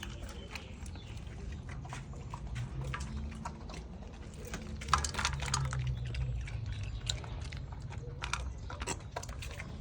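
Dogs chewing and biting raw food, with irregular sharp clicks of teeth and food, busiest about halfway through and again near the end.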